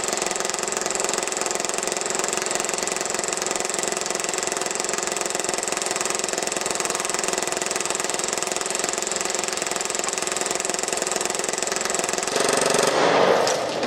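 Action Army AAP-01 airsoft pistol firing one long full-auto burst on an air tank. The rate of fire is so high that the shots blur into a steady buzz.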